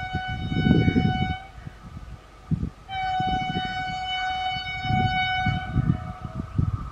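Vande Bharat Express electric trainset sounding its horn on one steady note in two blasts. The first ends about a second and a half in, and the second, longer blast runs from about three seconds to five and a half. The train's low, uneven rumble runs beneath.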